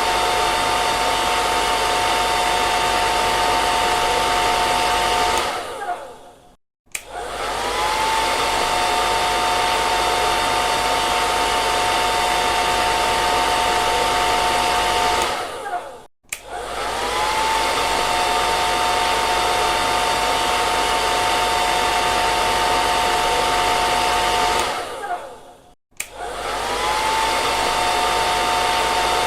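Hair dryer blowing steadily, a rush of air with a steady motor whine. Three times it winds down, the whine falling, cuts out for a moment, then starts up again with the whine rising back to pitch.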